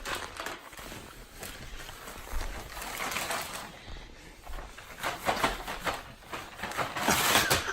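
Packing paper rustling and crinkling as it is pulled out and handled, with irregular crackles that grow busier and louder near the end.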